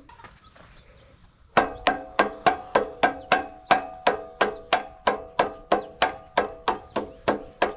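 Rapid, even hammer taps on a metal part of a log splitter's hydraulic cylinder, about three a second, each with a short metallic ring. They start about a second and a half in.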